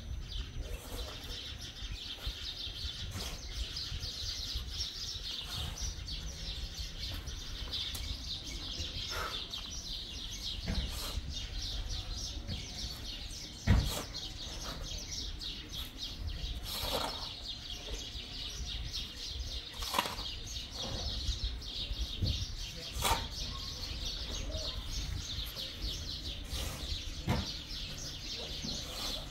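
Birds chirping in a continuous dense high chatter, with a few sharp knocks scattered through it, the loudest about fourteen seconds in.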